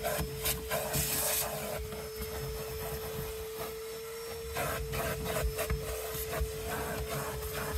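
Brush scrubbing in quick back-and-forth strokes, over a steady motor whine. The strokes ease off for a couple of seconds in the middle, then start again.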